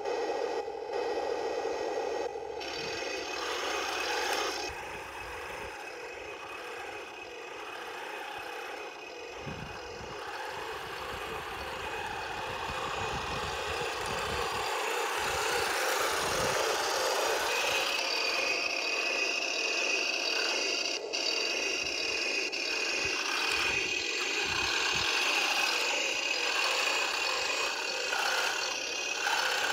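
Heng Long 1:16 scale RC tank driving, its small electric drive motors and gearboxes whirring while the plastic tracks rattle and scrape over loose gravel and stones. A steady high whine comes in about two-thirds of the way through.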